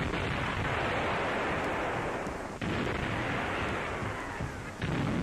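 Battle explosions, like artillery shells bursting: three sudden blasts, about two and a half seconds apart, each trailing off in a long fading rush of noise.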